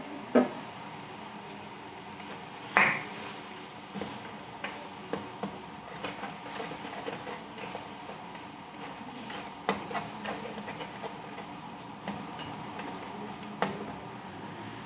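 A metal spatula and a ladle knocking and scraping against a metal wok while stirring, in irregular clinks, the loudest about three seconds in.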